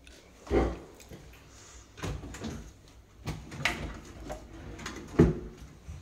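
A wooden wardrobe drawer being handled, sliding and bumping shut, with a string of knocks and thuds: the loudest about half a second in and a sharp knock about five seconds in.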